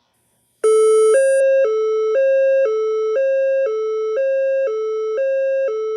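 Fire alarm voice-evacuation speaker sounding its alert signal tone, a two-pitch hi-lo tone that starts about half a second in and alternates about every half second. The tone signals that an event has been reported in the building, ahead of the recorded 'attention please' announcement.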